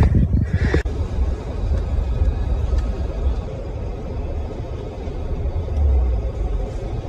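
Steady low rumble inside the cabin of a 2023 Ford Edge L SUV driving slowly over a rough dirt track: tyre and road noise from the uneven ground. The first second has a few sharp clicks before the sound changes abruptly.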